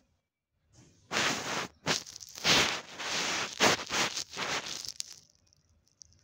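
Rustling and handling noise close to the phone's microphone, in several loud, noisy bursts over about four seconds as the phone is moved and set in place, then dying away to a faint hiss.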